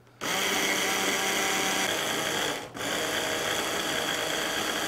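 Electric hand blender with a chopper-bowl attachment running, chopping basil leaves and walnuts into pesto. It runs in two goes with a brief stop about two and a half seconds in.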